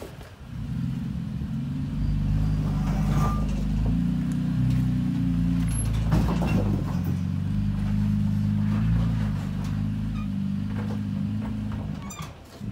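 Third-generation Toyota Tacoma's engine running low and steady as the truck crawls over rocks, its note shifting slightly with the throttle, with a few brief knocks.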